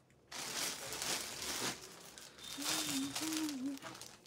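Clear plastic packaging crinkling as a packed suit is picked up and handled, with a short hummed voice partway through.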